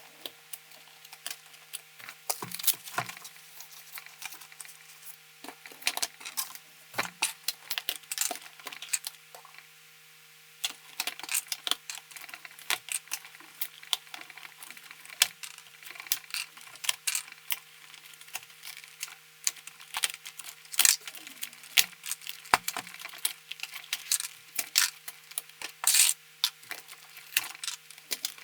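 Plastic keycaps being pulled off a mechanical keyboard with a keycap puller and dropped, a string of irregular sharp clicks and clatters.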